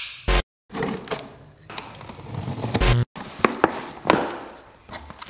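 Cardboard box being unboxed: a pocket knife cutting the packing tape, then cardboard flaps and plastic wrapping being handled. The sound comes in short clips joined by abrupt cuts, each cut marked by a brief loud burst of noise.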